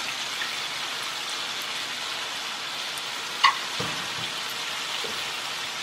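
Prawns and snake gourd frying in a wok: a steady sizzle, with one short sharp click about three and a half seconds in.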